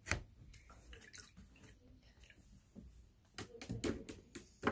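Light clicks and taps from a paintbrush and painting supplies being handled at a table: one sharp click at the start, a few faint ones, then a quick cluster of taps about three and a half seconds in and one more near the end.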